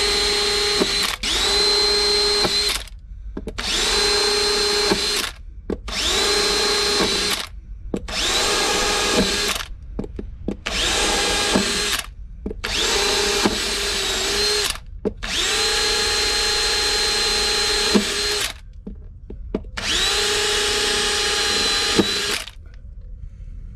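Makita 18V cordless drill boring test holes into a sailboat's fibreglass keel, run in about nine short bursts, each spinning up quickly to a steady whine and stopping sharply. The holes go through a bump in the keel laminate that is thought to be delaminating, to find out whether water is trapped inside.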